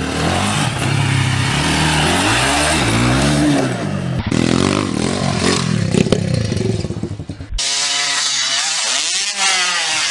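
Dirt bike engines revving up and down in pitch over several short clips that cut off abruptly, with a brief knock about six seconds in.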